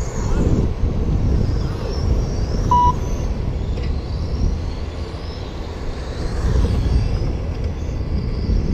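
Electric 1/10-scale RC race cars running on the track, their motors giving faint high whines that rise and fall as they pass, over a steady low rumble. A short electronic beep sounds about three seconds in.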